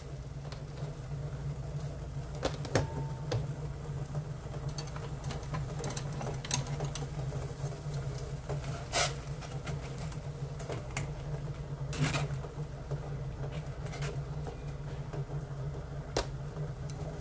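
Pot of salted water at a boil with oyster mushrooms blanching in a stainless mesh strainer insert: steady bubbling with scattered irregular pops and clicks over a low steady hum.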